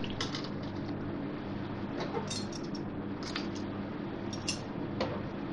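A few light clicks and crinkles of aluminium foil as a foil cup is set down among the chicken pieces in a kadai. Under them runs a steady low hum.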